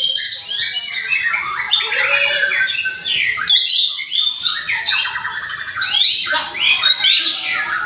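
White-rumped shamas (murai batu) singing loudly: a dense, continuous stream of varied whistled phrases, rapid trills and harsh squawky notes, with a brief lull about three and a half seconds in.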